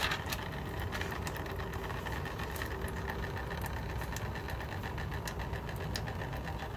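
A steady low mechanical hum, with faint scattered clicks over it.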